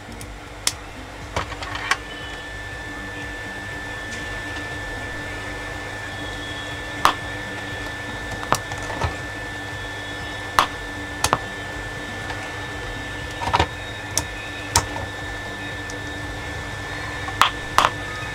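Steady electrical hum and hiss with a faint high whine, broken by a dozen light clicks and taps.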